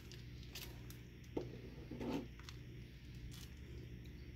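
Faint handling sounds while filling cream puffs from a plastic piping bag: a few brief rustles and soft knocks, about a second and a half and two seconds in, over a low steady hum.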